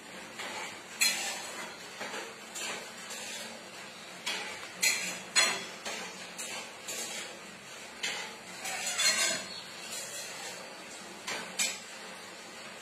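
Irregular sharp clicks and clatters of cats' claws and paws scrabbling on ceramic floor tiles as a mother cat and kitten play-fight, over a steady low hiss.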